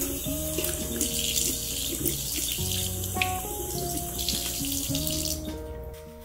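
Kitchen faucet running, water splashing into and off a plastic container in a stainless steel sink, cut off shortly before the end.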